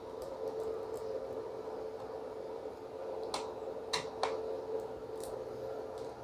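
A few faint, sharp clicks of a small screwdriver and screw as a hard-disk mounting screw is taken out of a laptop, the clearest three coming between about three and a half and four and a half seconds in. A steady faint hum runs underneath.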